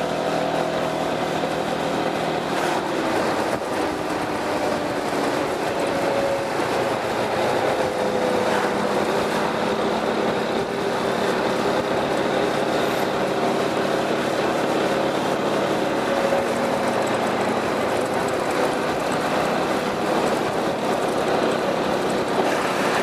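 Piaggio MP3 400's single-cylinder engine running through an aftermarket Akrapovic exhaust, a steady note that drifts slightly in pitch now and then.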